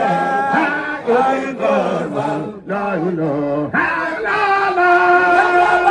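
A crowd of men in Baye Fall devotional chanting, singing together in long held notes. The chant dips briefly about halfway through, then a new phrase starts with a rising note and is held.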